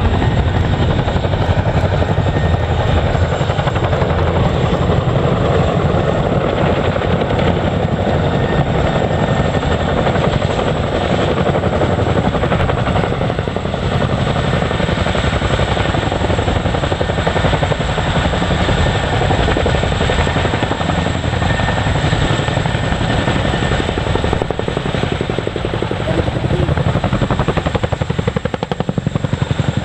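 Boeing CH-47 Chinook tandem-rotor, twin-engine helicopter flying close, its two rotors beating steadily with a thin high whine above the beat. The sound dips slightly in loudness a couple of times.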